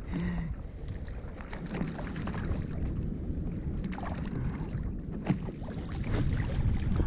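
Wind buffeting the microphone over water lapping against a plastic kayak while a hooked fish is reeled up alongside, with scattered small knocks and clicks; the fish splashes at the surface in the last few seconds.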